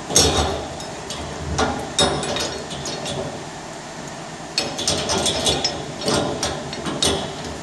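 Metallic clinks and knocks of steel hitch parts being handled: the pin pulled from the mower's top-mast bracket and the 3-point top link's ball end fitted into it. A few sharp clicks come near the start, then a busy run of clinks in the second half.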